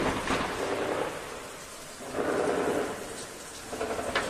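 Heavy gunfire: sharp single shots near the start and near the end, with stretches of rapid automatic fire in between.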